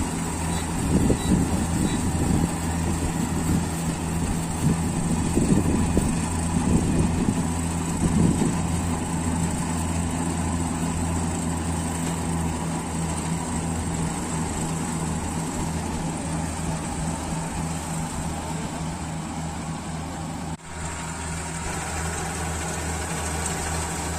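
Combine harvester engine running steadily with a low drone, dropping out abruptly for a moment near the end before resuming.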